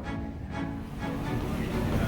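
Instrumental background music, with a rushing noise of wind and sea building up about a second in.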